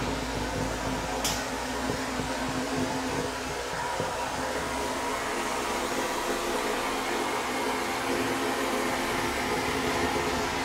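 Vapor honing cabinet blasting: a steady hiss of the wet-blast gun spraying a slurry of water, glass bead and aluminum oxide against an aluminum intake manifold, with a steady hum underneath.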